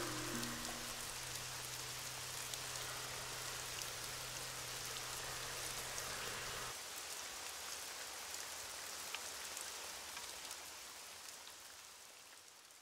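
A steady rain-like hiss with faint crackling, over a low hum that stops about seven seconds in; the hiss then fades out gradually toward the end.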